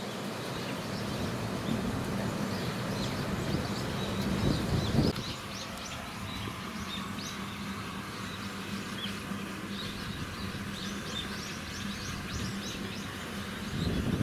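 Small birds chirping: many short, high calls, over a low rumbling noise that stops abruptly about five seconds in, and a faint steady hum.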